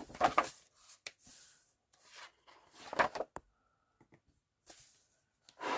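Paper pages of a large book rustling as they are handled and turned, in a few short brushes.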